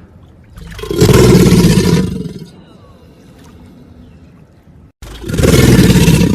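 Crocodilian giving two loud, rough, low calls of about two seconds each, the first about half a second in and the second just after an abrupt break at about five seconds.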